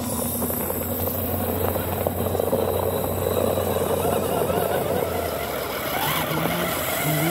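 Radio-controlled scale crawler's electric motor and gearbox running steadily as it climbs a loose dirt bank, with a dense crackle of soil and grit under the tyres. The steady hum drops out after about five seconds and voices come in near the end.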